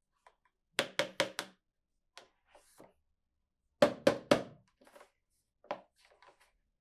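Hard plastic toy pieces knocking and clacking as they are handled: a quick run of four knocks about a second in, another run of three near the middle, and fainter taps between.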